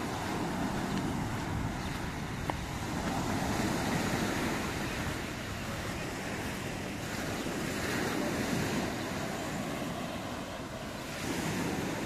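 Sea waves breaking and washing up a sand-and-pebble beach, the surf rising and falling every few seconds, with wind. A single sharp click about two and a half seconds in.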